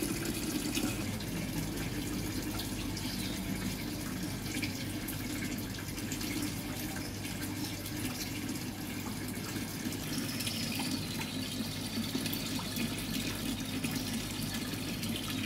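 Water running steadily into a fish pond as it is refilled.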